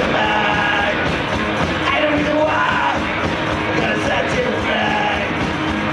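Live garage rock band playing loudly, led by electric guitar.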